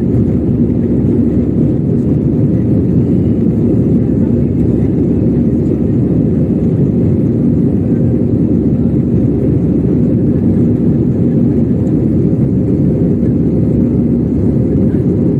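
Steady cabin noise of a jet airliner in flight, heard inside the cabin: a dense low rumble of engines and rushing air with a faint steady hum running through it.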